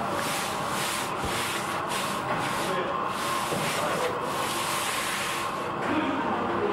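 A metal spatula spreading and smoothing soft egg-yolk and cherry filling on a marzipan base, repeated rubbing, scraping strokes about twice a second that stop near the end. A steady hum runs underneath.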